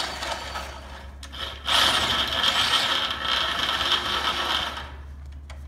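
Corded electric drill boring out old rivet holes in a steel truck frame to a 15/32-inch clearance hole. The bit cuts into the steel harder from just under two seconds in, with a steady high scraping tone, and eases off near the end.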